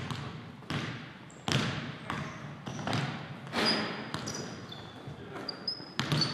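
Basketball bouncing on a hardwood gym floor as it is dribbled, in irregular echoing thuds about once a second, with a few short high squeaks in between.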